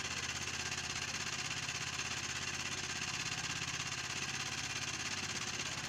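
A small engine running steadily at an unchanging speed, with a fast, even beat.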